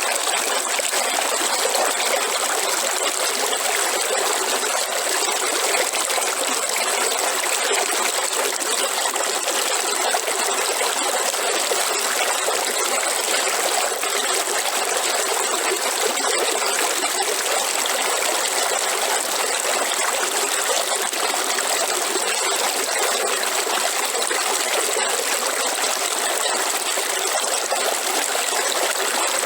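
A river flowing over rocks: a steady, even rushing and trickling of water.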